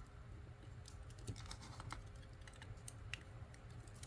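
Faint clicks of plastic LEGO pieces being handled and pressed together, a quick cluster of clicks about a second and a half in and a single click near three seconds, over a low steady hum.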